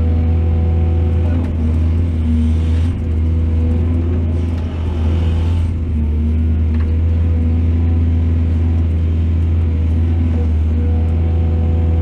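Heavy diesel engine running steadily with a deep, constant hum, with brief noisier surges about three seconds in and again around five to six seconds.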